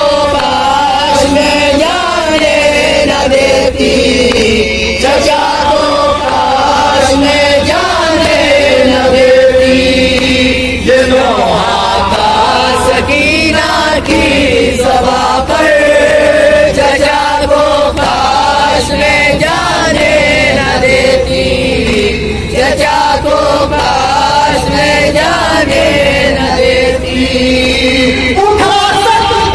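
Two men's voices reciting a nauha, an Urdu lament chant, in unison into a microphone, the melody rising and falling in long held lines.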